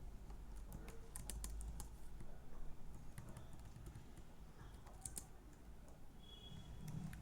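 Typing on a computer keyboard: faint keystroke clicks in short clusters with pauses between.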